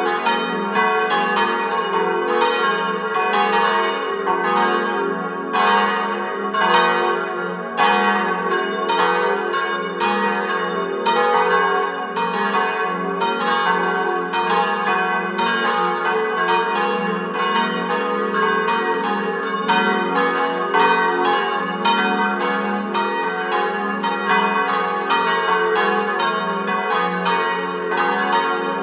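Full peal of four church bells tuned to a G-flat major diatonic scale, cast by Giovanni Colbacchini of Trento in 1925 and 1931, all swinging together, their strikes overlapping at several pitches in a continuous, uneven stream.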